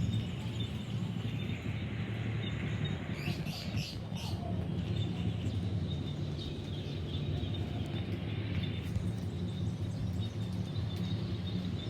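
Birds chirping, a few short calls bunched together about three to four seconds in, over a steady low rumble.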